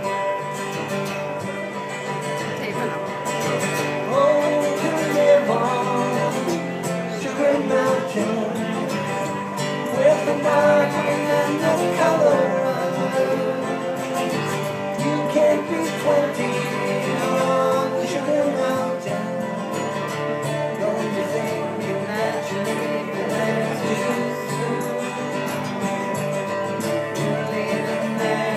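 Live acoustic guitar strumming with a harmonica played over it in an instrumental break, carried through a PA. The harmonica line bends and is strongest in the first half.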